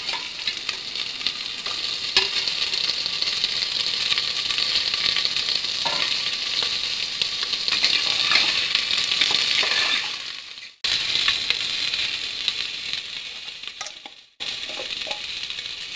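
Pieces of pork leg sizzling as they fry in hot mustard oil in an open aluminium pressure cooker, with a metal spatula stirring and clinking against the pot now and then. The sizzle drops out briefly twice in the second half.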